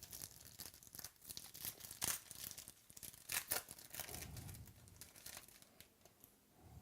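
Trading cards and a foil pack wrapper being handled: irregular crinkling and crackling, busiest in the first few seconds.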